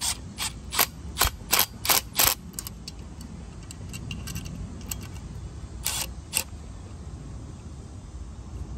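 Cordless power driver with a nut-driver bit run in short bursts, tightening the bolts of a blower motor's mounting bracket a little at a time. About seven quick bursts in the first two and a half seconds, then two more about six seconds in.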